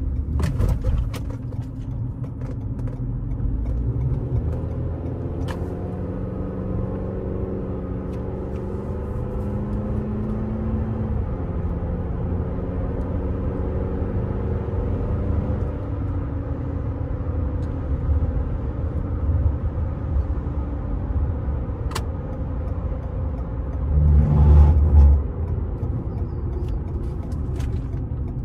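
Tire and road rumble with a low engine hum, heard inside a moving Toyota RAV4 TRD Off-Road riding on Toyo Open Country AT3 all-terrain tires, its naturally aspirated four-cylinder running under the rumble. About 24 seconds in there is a brief, louder low rumble.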